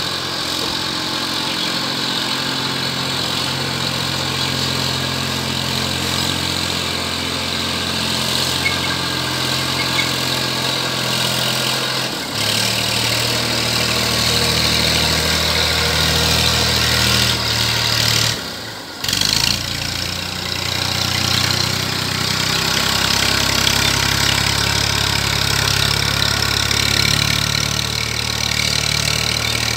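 Massey Ferguson 1035 DI tractor's three-cylinder diesel engine running steadily under load while pulling a puddler through a flooded field. The engine note changes abruptly about 12 seconds in and drops out for a moment near 19 seconds.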